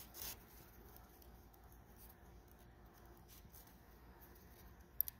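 Near silence with faint handling noise, and a short sharp click with a smaller second click near the end.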